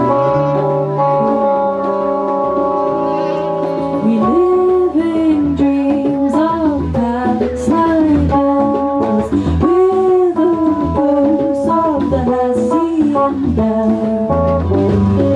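Live band playing: guitars, bass guitar, cello and drums, with a lead melody line that comes in about four seconds in, bends between notes and drops out near the end.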